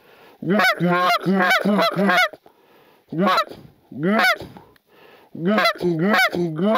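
Canada geese honking: about a dozen loud, rising honks, several overlapping in a quick run in the first two seconds, then single honks, then another overlapping run near the end.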